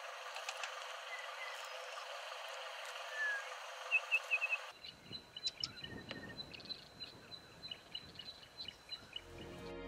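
Outdoor nature ambience with small birds chirping in short, quick runs. About halfway through, the background changes abruptly to a thinner one full of brief high chirps.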